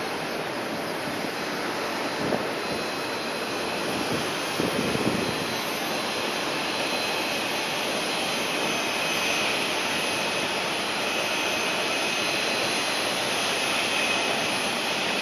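Jet aircraft engines running steadily: an even rushing noise with a faint high whine that grows a little stronger in the second half.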